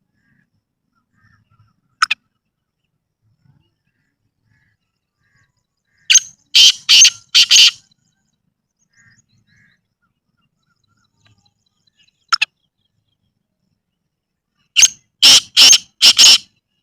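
Black francolin calling: twice, a loud phrase of four or five short, harsh notes in under two seconds, each phrase with a single brief note a few seconds before it.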